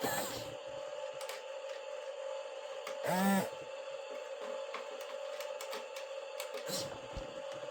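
Toy RC battle tank's small electric gear motors whirring with a steady whine and scattered clicks. About three seconds in there is a short pitched sound lasting about half a second.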